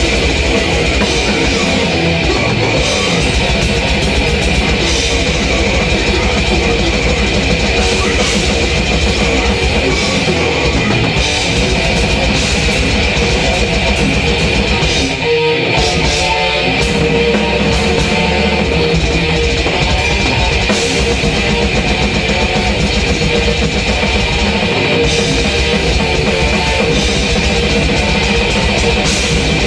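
Heavy metal drum kit played hard and continuously together with electric guitar, with a short break about halfway through.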